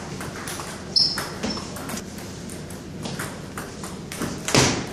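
Table tennis ball clicking back and forth in a rally, hit by paddles and bouncing with a short high ping off the table. A louder burst of noise comes near the end.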